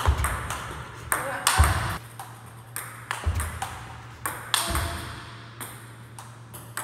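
Table tennis ball clicking again and again off rubber paddles and the table during forehand smash practice, the clicks coming at an irregular pace, with several dull low thuds among them.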